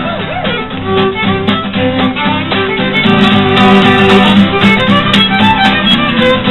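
Fiddle and acoustic guitar playing an instrumental passage of a folk medley between sung verses, the fiddle carrying the melody.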